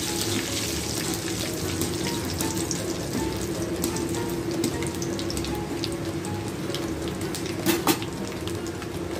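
Spices for a tempering sizzling and crackling in hot oil in a metal kadhai: cumin, mustard seeds, garlic, dried red chillies and curry leaves, stirred with a slotted metal skimmer. A steady hiss runs throughout, dotted with small pops, and a brief louder clatter comes about eight seconds in.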